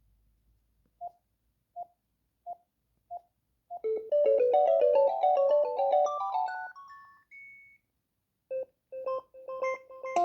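Philips D215 cordless phone handset sounding five short, identical beeps, then playing a fast electronic ringtone melody for about four seconds that ends on a high held note. After a beep, another ringtone begins near the end with a run of repeated notes.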